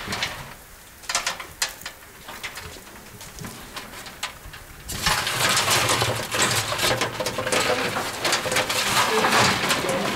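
Bundle of willow rods rustling and scraping against the sides of a tall metal bin as they are pushed down into it, with a few light clicks and knocks at first and a louder, denser rustle from about halfway through.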